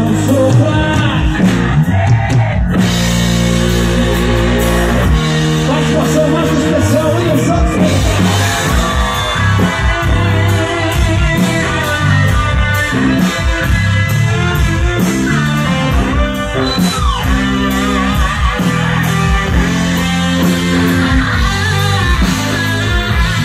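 Live gospel rock band playing loudly, with electric guitar, keyboard and drums, and a man singing over the band.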